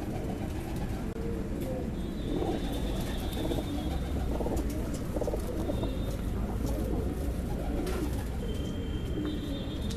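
Several white domestic pigeons cooing, low wavering coos following one another and overlapping.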